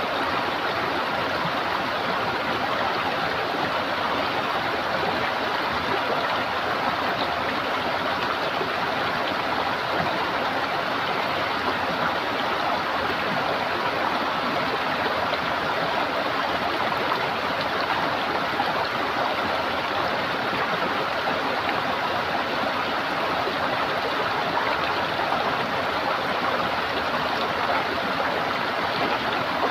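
Running water gurgling steadily, an even flow with no change in level.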